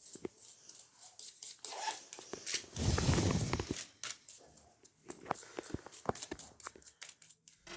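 Faint scattered clicks and taps of a laptop battery and parts being handled and set into an open MacBook Air, with a louder rustle or scrape about three seconds in.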